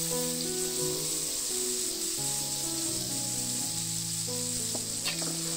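Ground chilli-and-shallot spice paste frying in hot oil in a wok, with a steady, loud sizzle. Background music with a melody plays over it.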